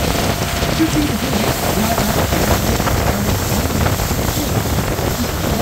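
Wind rush and water noise on a tour boat under way at speed through choppy water, with the boat's engine running underneath. The noise is loud and steady.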